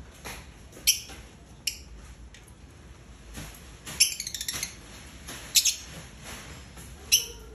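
Lovebirds chirping while mating: single sharp, high chirps every second or two, with a quick run of chirps about four seconds in.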